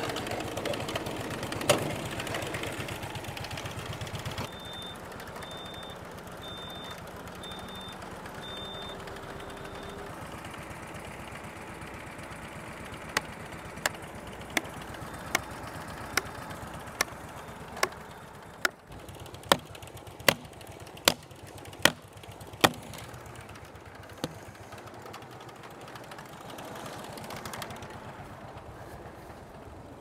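A Lucas portable sawmill's petrol engine running for the first few seconds, then stopping suddenly. Later comes a steady run of about a dozen sharp hammer blows, a little more than one a second, and one last blow shortly after.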